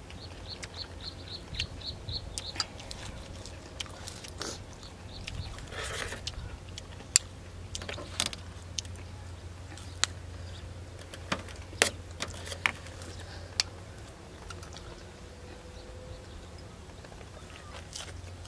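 Close-up eating sounds: chewing and crunching of raw vegetables and boiled chicken, with scattered sharp snaps and clicks as stems are broken and food is handled on metal trays. A quick run of high ticks, about five a second, near the start, over a steady low hum.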